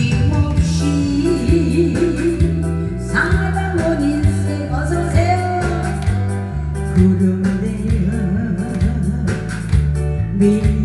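A woman singing a song into a microphone in a thick, husky voice over a loud amplified backing track with a steady repeating bass line.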